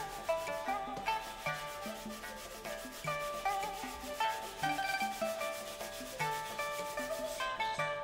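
Background music: a plucked-string melody over a quick, even rhythm.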